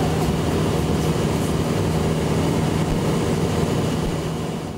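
Cessna 172 SP's four-cylinder Lycoming engine and propeller running steadily in cruise, heard from inside the cabin, fading out near the end.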